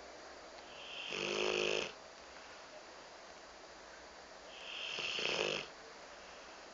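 Rottweiler snoring in its sleep: two long snores about four seconds apart, each swelling and then stopping abruptly.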